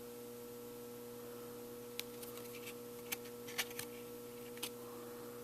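Steady electrical mains hum, with a few faint light clicks of trading cards being handled.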